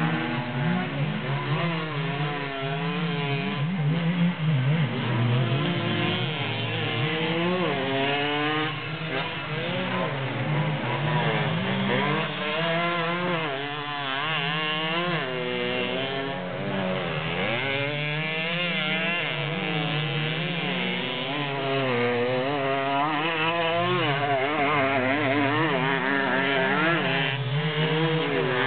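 Small two-stroke moped-cross engines buzzing and revving, their pitch climbing and dropping again and again as the riders accelerate and back off, with more than one engine heard at once.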